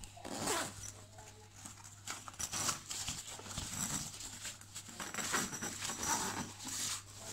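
A ballistic-polyester backpack being handled: irregular rustling and scraping of the fabric and zipper as a hand opens a compartment and feels around inside it.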